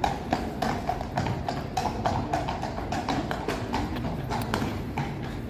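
Shod horses walking on stone paving: an irregular clip-clop of overlapping hoofbeats, several a second, from two horses.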